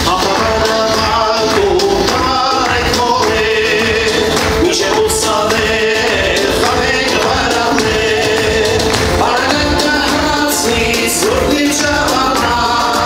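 A male singer singing into a microphone over amplified backing music, heard through a concert hall's PA.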